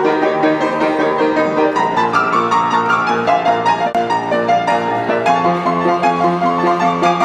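Upright piano played in a fast boogie-woogie in B flat: quick right-hand figures over a steady repeated bass line.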